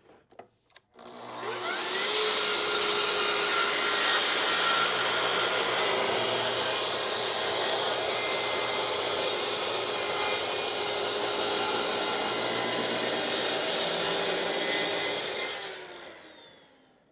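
Electric power saw spinning up to speed, running steadily for about fourteen seconds while cutting wooden shelf panels, then winding down near the end.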